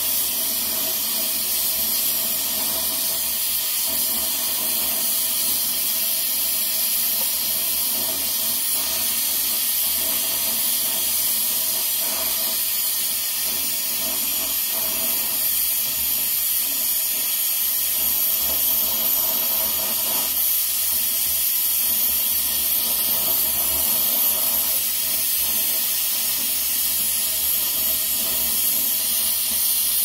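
Oxy-fuel welding torch burning with a steady hiss as it tack-welds a drill chuck onto a motor shaft.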